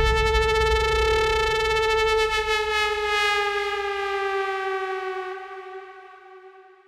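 Electronic background music ending on one long held synthesizer note. The note sinks slightly in pitch and fades away, and the low bass under it drops out a little before the end.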